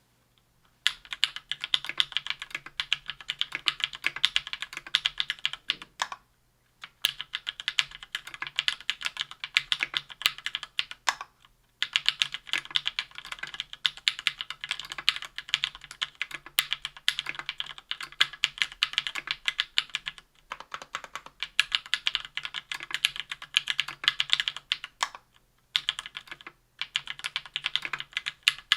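Typing on a KBDfans Tofu 60% aluminium keyboard with lubed SP-Star White Meteor 57 g linear switches and GMK keycaps: quick, continuous keystroke clicks in runs of several seconds, broken by brief pauses about six, eleven, twenty and twenty-five seconds in.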